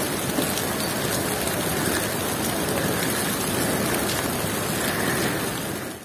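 Heavy wet snow falling, with a steady rain-like patter on the surfaces around. It fades out at the very end.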